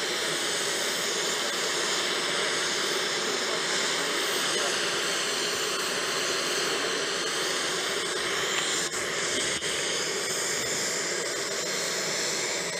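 A jet turbine running steadily: an even rushing hiss with a high whine over it.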